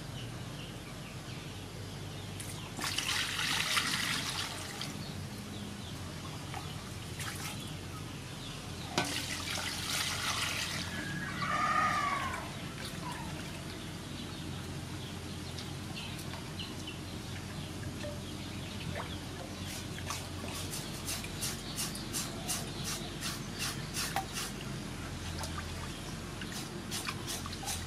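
Water splashing and sloshing in an aluminium basin as raw pork is washed and rubbed by hand. There are two louder rushes of water, about three and about nine seconds in, and a run of quick small splashes over the last several seconds.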